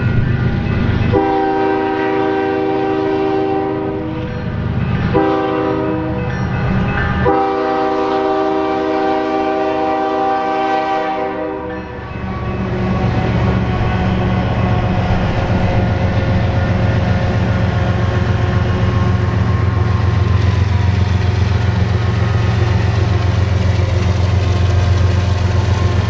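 Canadian Pacific freight locomotive sounding its air horn for a grade crossing: a long blast, a shorter one, then a long one that stops about twelve seconds in. The lead diesel locomotive, a GE ES44AC, then passes close by, its engine loud and deep and steady as the train rolls past.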